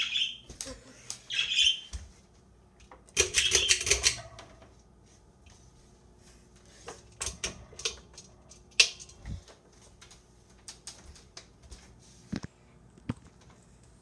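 Small 24-inch Hampton Bay Metairie ceiling fan running with a faint steady hum, under scattered irregular clicks and rattles. Louder squeaky rustles come in the first two seconds, and a longer scraping rustle about three seconds in.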